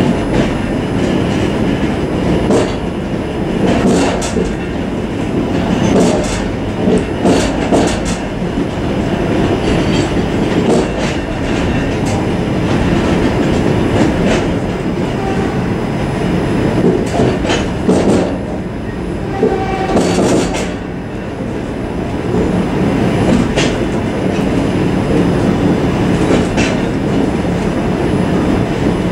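Suburban train running, heard from inside the end vestibule of a car: a steady rumble, with the wheels clacking over rail joints every second or few seconds, often in quick clusters.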